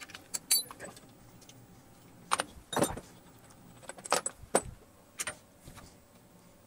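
Steel strap clamps, clamp nuts and a wrench clinking and knocking against a steel fixture plate as the clamps are loosened and moved: a series of sharp, separate metal clinks with short gaps between them.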